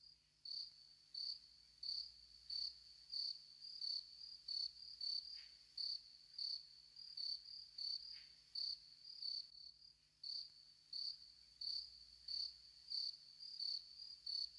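A cricket chirping faintly and steadily, short high-pitched chirps about three every two seconds.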